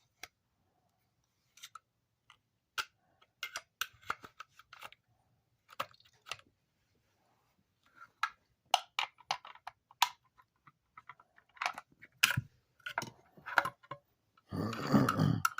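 Irregular clicks and light knocks of hand tools working at a small electric motor, prying and wedging at its parts, with a longer scraping noise near the end.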